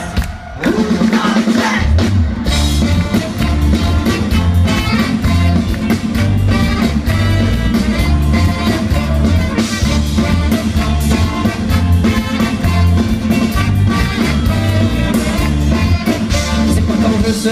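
Live band playing an instrumental passage on drum kit, bass, guitars, keyboard and horns (saxophone, trombone, trumpet), with a steady driving beat. Loud throughout after a short dip in level about half a second in.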